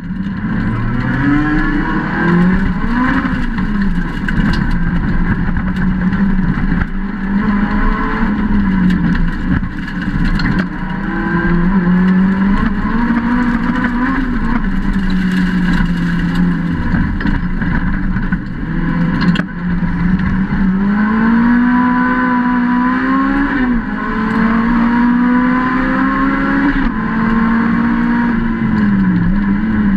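Lotus Exige rallycross car's engine heard from inside the cockpit at racing pace. It revs up and drops back sharply several times as it shifts gear, over a steady rush of tyre and road noise, with a few sharp clicks.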